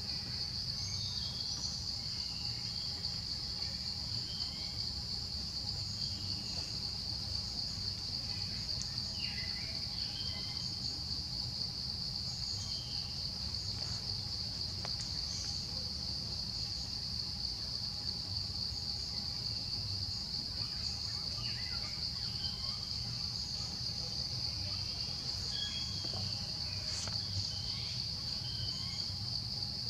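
Steady, unbroken high-pitched drone of insects, with scattered short chirps and a low rumble underneath.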